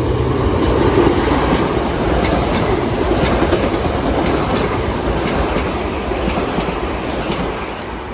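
Metro-North M7 electric multiple-unit train passing through at speed without stopping, wheels clicking rapidly over rail joints. Loudest about a second in, then slowly fading.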